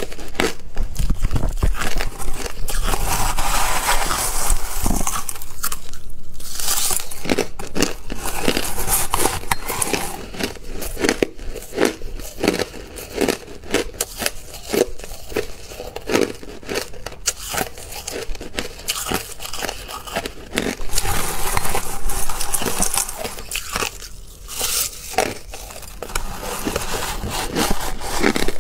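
Crushed ice crunching and crackling as it is chewed, close up: dense crackling at first and again near the end, with separate sharp crunches about once or twice a second in between.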